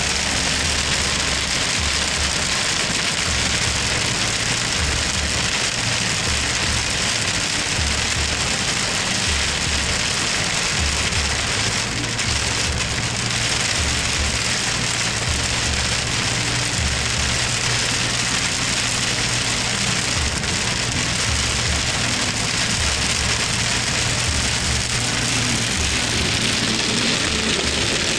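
Heavy rain beating steadily on a car's windshield and roof, heard from inside the moving car.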